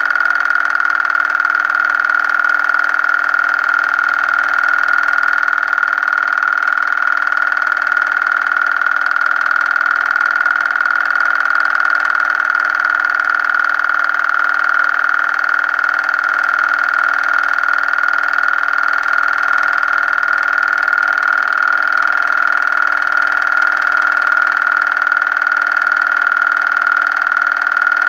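Film projector running: a steady mechanical whir with a constant high-pitched whine that never changes.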